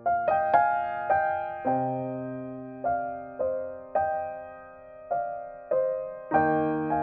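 Slow, gentle solo piano background music: single notes struck one after another and left to ring out, with fuller chords about a second and a half in and again near the end.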